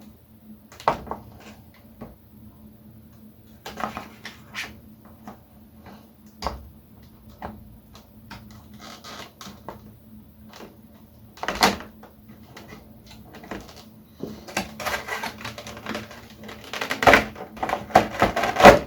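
Plastic packaging and parts from a figure's accessories pack being handled: scattered clicks and knocks, growing into a busier, louder stretch of clicking and rustling in the last few seconds.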